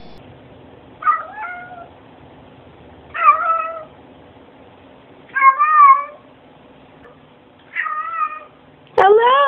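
Domestic cats meowing: five separate meows spaced about two seconds apart. Near the end a sudden click is followed by a meow that rises sharply in pitch.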